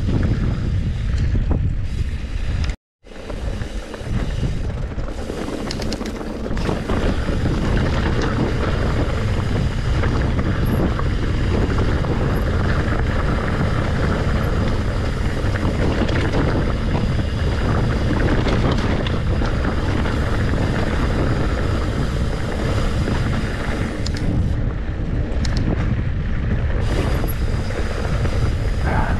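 Wind buffeting the microphone of a camera riding along on a mountain bike, mixed with the rumble and rattle of tyres on a dirt and rock trail. The sound cuts out completely for a moment about three seconds in.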